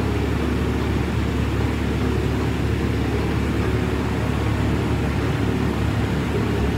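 Bridge-type CNC milling machine running steadily, a low even hum, as it slowly traverses a dial indicator along a machined surface.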